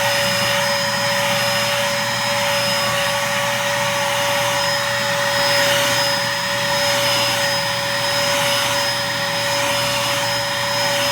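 A Dirt Devil Featherlite bagless cyclonic upright vacuum cleaner running steadily on carpet, a constant whine with a fixed tone and a higher whistle over the rush of air. The owner finds it is no longer picking up dirt as well as it used to.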